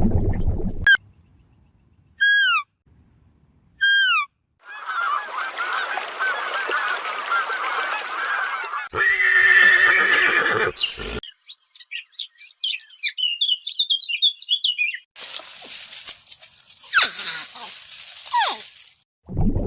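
A run of separate animal and bird call recordings. First come three short honking calls that fall in pitch, goose-like. Then a stretch of dense flock chatter, a brief pitched call, fast high chirping, and a hissing passage with falling calls.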